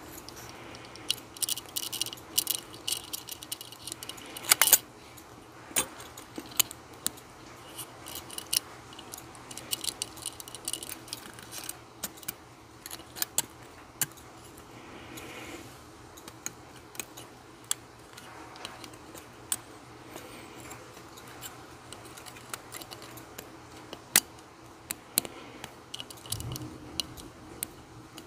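Steel watchmaker's tweezers clicking and tapping on small brass wheels and the metal main plate of a wristwatch movement as the wheels are set in place: many small, sharp metallic clicks at irregular intervals, loudest about five seconds in.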